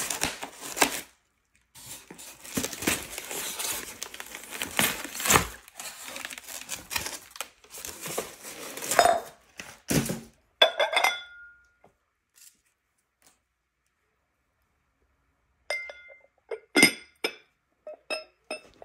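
Styrofoam and cardboard packaging rustling and scraping as it is cut and pulled apart with scissors for the first ten seconds. Then a hand-painted glass jar is handled, the glass clinking with short ringing chinks about eleven seconds in and several more near the end.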